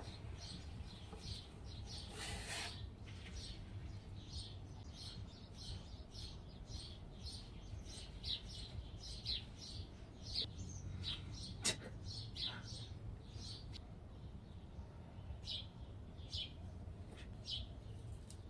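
Small birds chirping over and over, short high chirps several to the second, over a low steady hum. A brief rush of noise comes about two seconds in, and a single sharp click near the middle.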